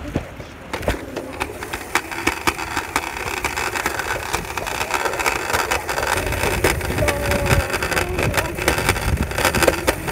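Scooter wheels rolling along a concrete sidewalk, a continuous rumble full of sharp clicks and knocks, picked up by a phone in a pocket so that fabric rubs and rustles over the microphone. The rumble grows louder about a second in.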